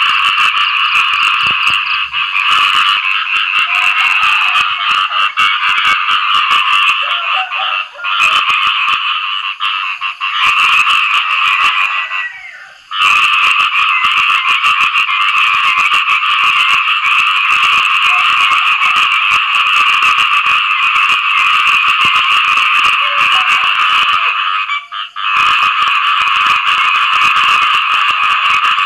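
A chorus of khiat i-mo frogs giving their mating calls after rain: a dense, continuous rapid pulsing that dips briefly a few times.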